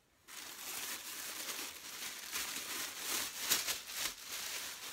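Clear plastic packaging bag crinkling and rustling as it is handled, starting a moment in, with sharper crackles about three and a half seconds in.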